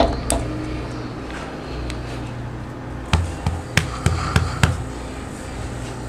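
A hand patting a sleeping dog's body: a run of about six dull thumps between three and five seconds in, over a low steady rumble.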